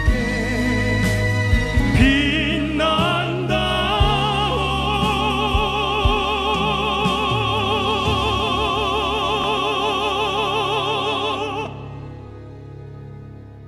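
Three male crossover (popera) singers singing in operatic style over a steady instrumental backing track, with long held notes and wide vibrato. The voices cut off about twelve seconds in, leaving the quieter accompaniment.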